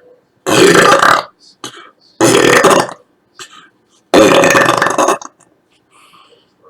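A woman belching three times in a row, each belch loud and under a second long, the third the longest.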